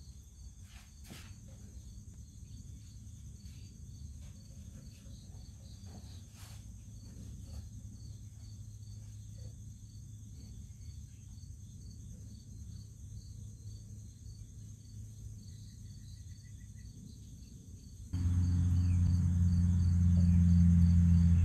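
Crickets chirping steadily over a faint low hum, with a few light handling clicks. About 18 seconds in, an air compressor's electric motor starts suddenly and runs with a loud, steady low drone, powering up to supply air for a spray gun.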